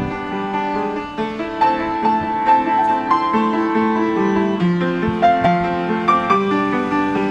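Upright piano being played by hand: a melody over held, overlapping chords.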